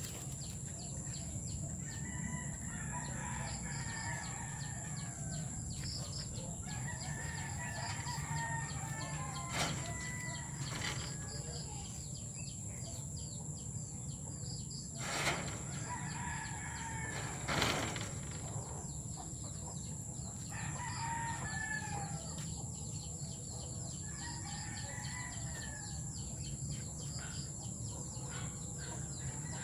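Chickens calling every few seconds, a rooster crowing among them. Three sharp knocks, about ten, fifteen and eighteen seconds in.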